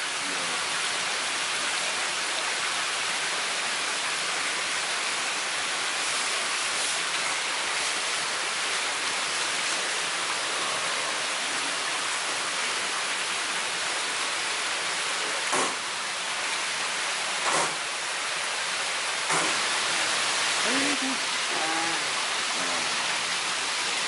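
Steady rush of running water, seawater flowing into a live-fish tank. A few sharp knocks come in the second half, and faint voices near the end.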